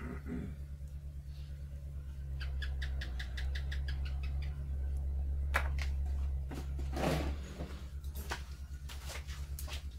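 A steady, pulsing low hum runs throughout. A couple of seconds in, a quick run of high, evenly spaced chirps, about five a second, lasts a little over two seconds. After that come a few sharp clicks and a short rustle of handling as the pruning shears are set down.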